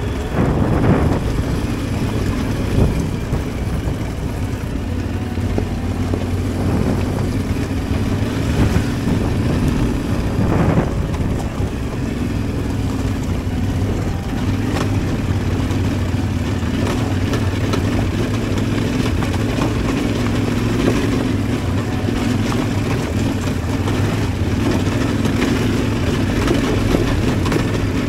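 Adventure motorcycle engine running steadily under way on a trail, with wind rushing over the microphone and a few knocks along the way.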